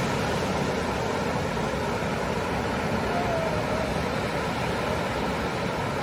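Ocean surf breaking on a sandy beach: a steady, unbroken wash of waves.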